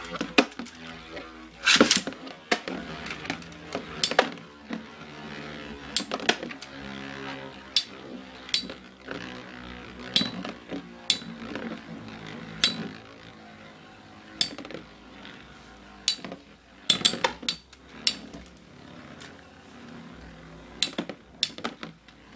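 Beyblade spinning tops clashing in a plastic stadium: sharp clinks as they strike each other and the stadium wall, many times at irregular intervals. A pitched tone that shifts in steps runs underneath.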